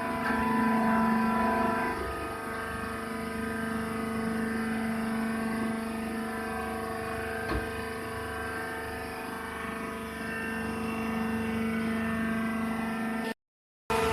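Hydraulic peanut husk baler running with a steady machine hum from its motor and pump, with a single short knock about halfway through. The sound cuts out briefly near the end.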